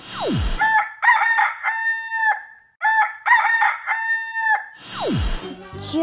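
Rooster crowing twice, each cock-a-doodle-doo about two seconds long. A quick falling swoop sound comes just before the first crow and again after the second.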